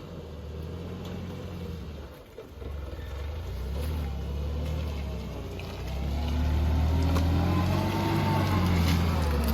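UAZ Bukhanka van's engine running as it drives. It eases off briefly a little after two seconds, and from about six seconds in its pitch rises and falls with the revs.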